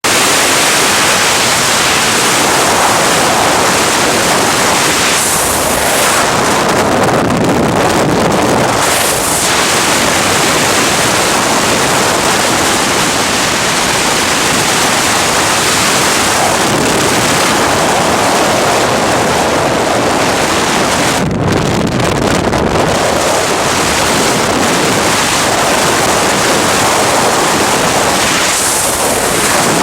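Gale-force wind blowing hard over the microphone, a loud unbroken rush of noise that swells and eases in gusts.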